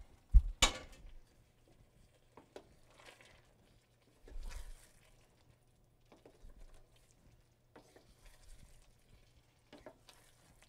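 Cooked anelletti pasta being stirred into tomato sauce with a wooden spoon in a stainless steel sauté pan, with soft scattered scrapes and knocks. A sharp knock of the metal pasta scooper on the pasta pot about half a second in is the loudest sound.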